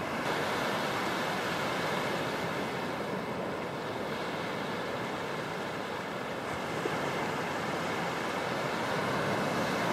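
Small surf waves washing onto a sandy beach, a steady rush of water, with some wind.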